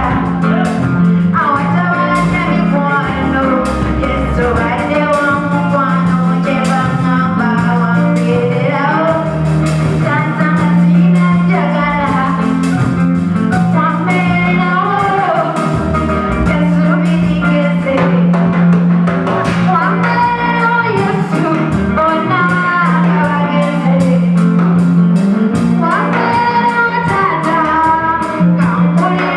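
Worship song: singing over a band with a sustained bass line and a steady drum beat.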